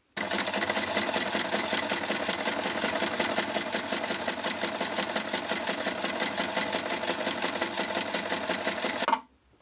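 Electric sewing machine running at a steady speed, stitching a hem through folded waxed canvas, with a fast, even rhythm of needle strokes. It stops abruptly near the end.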